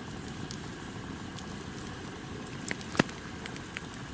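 Wood campfire crackling, with scattered sharp pops over a steady hiss; the loudest pop comes about three seconds in.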